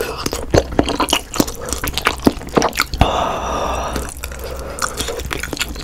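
Close-miked wet chewing of soft tofu, with sticky mouth clicks and squelches, and a breathy rush lasting about a second, about three seconds in.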